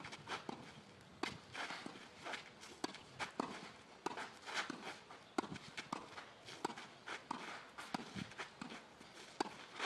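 Footsteps on a tennis court, with irregular sharp knocks, several a second.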